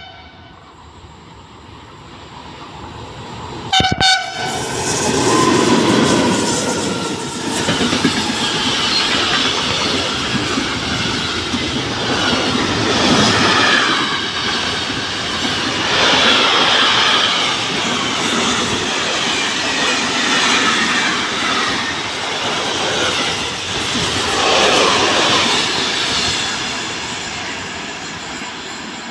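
Freight train of container wagons passing through a station. The locomotive sounds a short double blast on its horn about four seconds in. Then the wheels clatter over the rails, the rumble stays loud for some twenty seconds and fades as the train draws away.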